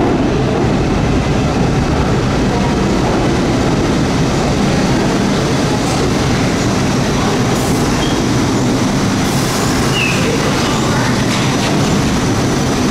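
R62A subway train pulling into an underground station, a steady loud rumble of steel wheels on rail. A brief wheel squeal comes about ten seconds in.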